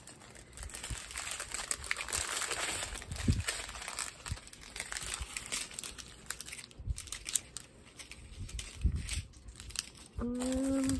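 Clear plastic strips of packaged diamond-painting drills crinkling and crackling as they are unfolded and handled. A short, steady hum comes in near the end.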